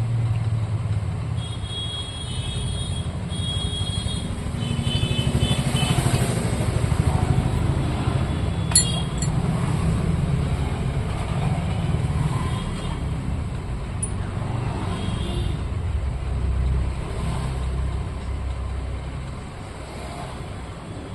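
Motor vehicle engines running, a steady low rumble that swells and fades, with one sharp click about nine seconds in.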